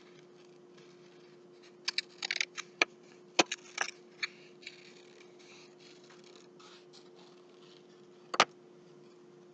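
Scissors cutting paper: a run of short snips about two to four seconds in and a couple more near the end, over a faint steady hum.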